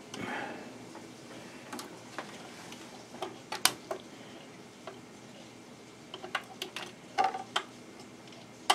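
BSR Quanta 450SX record changer running its change cycle: scattered light mechanical clicks and knocks as a 45 drops from the spindle onto the platter, with a sharper knock near the middle, a cluster of clicks later and another sharp click at the end.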